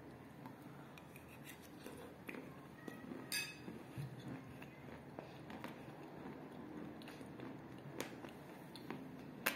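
Close-up chewing of chalk pieces mixed in kaolin clay: scattered small crackles and wet clicks from the mouth, with a few sharper snaps.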